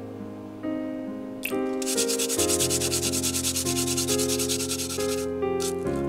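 A garlic clove being grated on a flat metal hand grater in rapid rasping strokes. It starts about two seconds in and lasts about three seconds, over soft piano background music.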